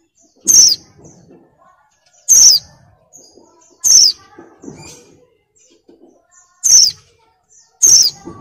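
Female white-eye (pleci) in breeding condition calling: five short, loud, high-pitched calls, each a quick falling note, spaced a second or two apart.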